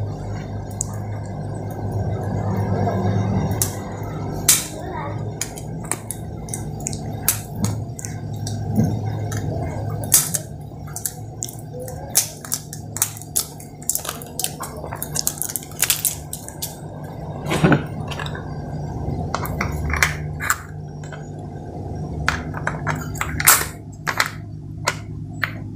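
Rapid plastic clicks and taps of AA batteries being handled and fitted into the battery compartment of an Ashley handheld wireless microphone, over a steady low hum.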